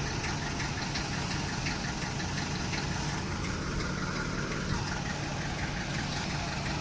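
Vehicle diesel engine running steadily at low revs, with a light regular ticking over its hum.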